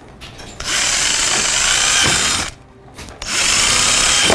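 Power drill running in two bursts, one about two seconds long and one about a second and a half, boring 3/16-inch holes through a plastic motorcycle fork guard.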